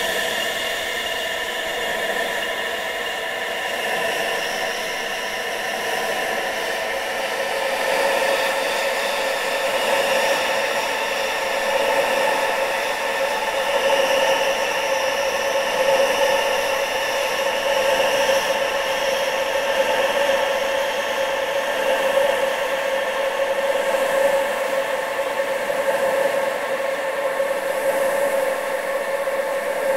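Steady wind sound with several sustained whistling tones held underneath, the whole slowly swelling in loudness over the first several seconds.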